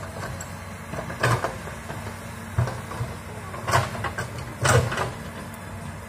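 Komatsu hydraulic excavator's diesel engine running steadily, with four sharp clanks and knocks about a second apart as the arm and bucket work through the brush and soil.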